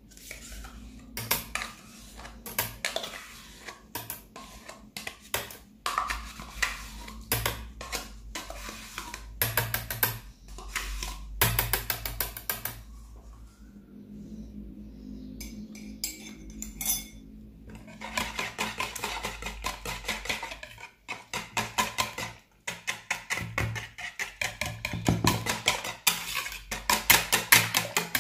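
Wire whisk beating eggs, oil and yogurt in a plastic mixing bowl: rapid clicking and tapping of the wires against the bowl, in runs broken by a pause of a few seconds near the middle.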